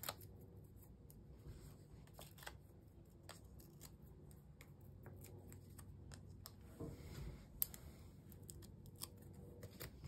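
Faint handling of paper and card stock: quiet rustles and scattered small clicks, with one sharper click about three-quarters of the way through.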